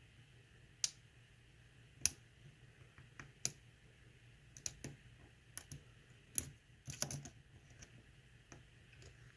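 Sharp, irregular clicks of a lock pick and tension wrench working the pins of a pin tumbler lock, about a dozen small ticks with a quick flurry about two-thirds through. The clicks are the pins being lifted and springing back, the feedback the picker reads while searching for set pins.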